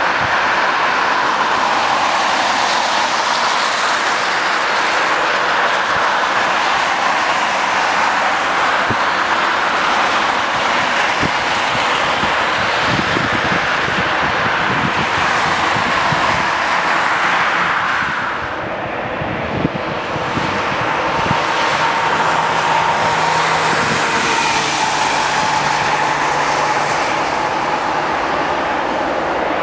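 Jet engines of an Air France Airbus A320 running as the airliner moves along a wet runway: a steady rushing noise with a whine. About two-thirds through the sound briefly dips, with a single click, and then the whine comes back with a low steady hum beneath it.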